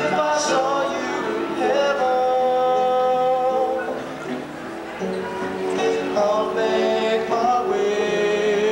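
A young man singing a slow song into a handheld microphone with musical accompaniment, holding long notes, with a short pause between phrases about halfway through.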